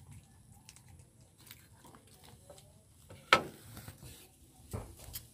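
Puppies eating from a plate, with small scattered clicks of chewing and lapping. A loud sharp knock comes about three seconds in, and a softer one near the end.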